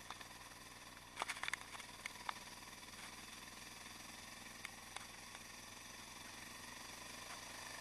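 Yamaha XT660X's single-cylinder engine with a Mivv exhaust running faintly and steadily at low revs, with a cluster of sharp clicks about a second in and two more near the middle. The level slowly rises toward the end.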